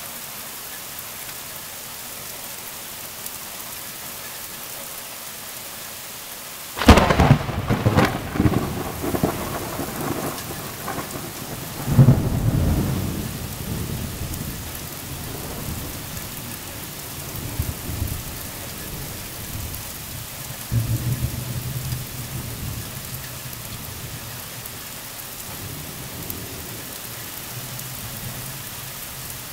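Heavy rain falling steadily in a thunderstorm. About seven seconds in, a close thunderclap cracks sharply and rolls into rumbling, with a second loud peal about five seconds later. Fainter rumbles follow and die away under the rain.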